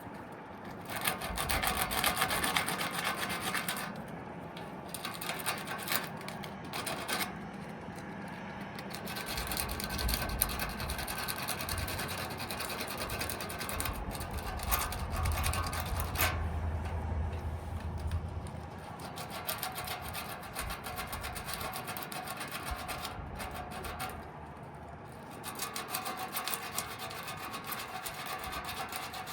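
Sandpaper rubbed by hand back and forth on a condenser fan motor's shaft, a continuous scratchy rasping that comes and goes in strokes. The shaft is being sanded down so the stuck fan blade hub can slide off it.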